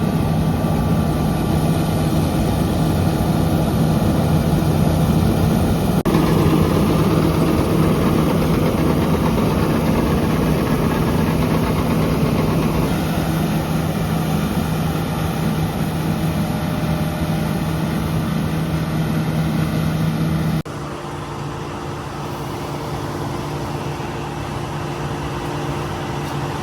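John Deere S780 combine harvester running steadily as it cuts wheat. The sound shifts abruptly about six seconds in, and near the end it drops to a quieter, more even hum.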